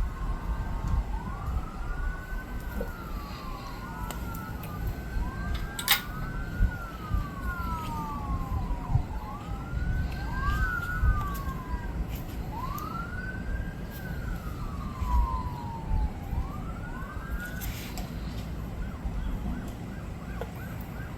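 Emergency vehicle siren wailing, its pitch sweeping up and falling back again and again, with two wails overlapping at times; it stops a few seconds before the end. A low rumble sits underneath, and there is a sharp click about six seconds in.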